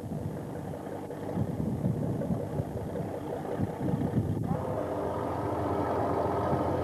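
Fishing boat's engine running, with an uneven low rumble over it. About four and a half seconds in the sound changes suddenly to a steadier, humming engine drone.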